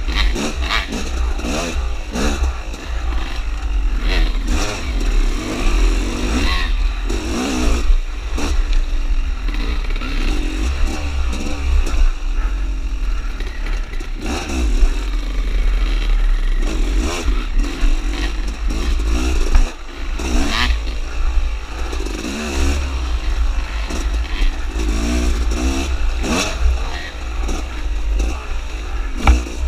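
Dirt bike engine revving up and down continually while riding a bumpy singletrack, with clattering knocks from the bike over the rough trail and heavy wind rumble on the microphone.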